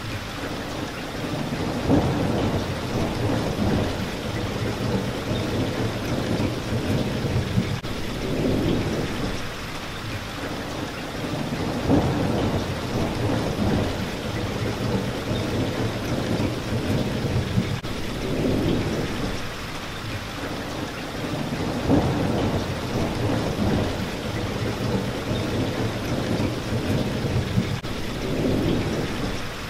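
Steady rain with low rolling rumbles of thunder that swell and fade roughly every ten seconds, each one starting fairly sharply.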